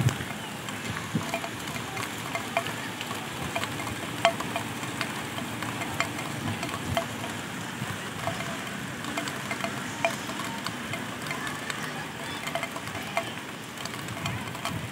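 Light rain falling as a steady hiss, with scattered drips ticking irregularly.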